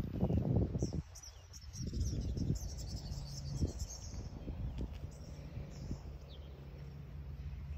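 Wind buffeting the microphone for about the first second, then birds chirping, busiest over the next few seconds, over a steady low hum.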